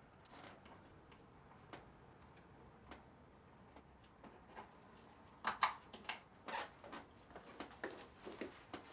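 Quiet bedroom with small knocks, clicks and rustles of objects being picked up and set down on a wooden bedside table: a few isolated clicks at first, then a busier run of knocks and rustles in the second half.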